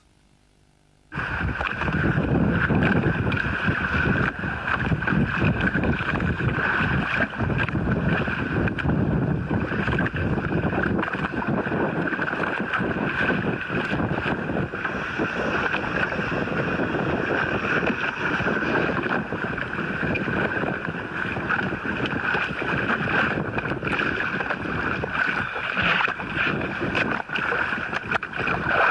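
Wind buffeting the microphone and water sloshing and splashing at the side of a boat, with a steady high whine underneath, starting about a second in.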